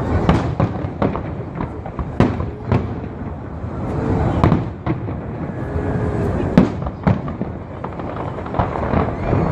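Fireworks display: a rapid series of sharp bangs and cracks from bursting aerial shells over a continuous rumble of distant explosions, with a few brief whistles.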